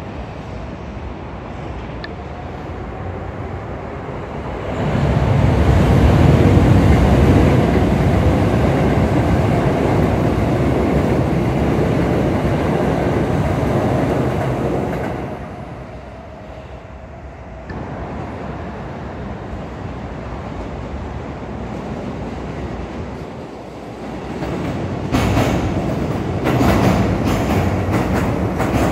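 Electric commuter trains passing through a station: a red Keikyu train goes by close, its running noise swelling about five seconds in, staying loud for about ten seconds, then dropping away. Near the end a JR East commuter train rolls past, its wheels clacking over the rail joints.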